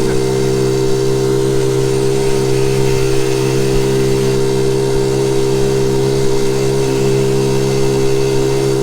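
Honda Z50J1 Monkey's small single-cylinder four-stroke engine running under way at a steady pitch, the revs holding constant.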